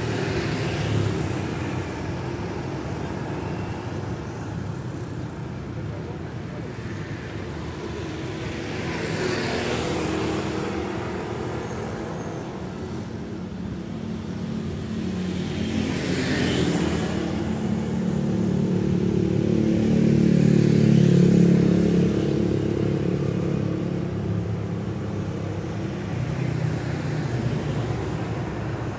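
Street traffic: cars and motorcycles passing one at a time over a steady traffic hum, with a louder engine swelling and passing about two-thirds of the way through.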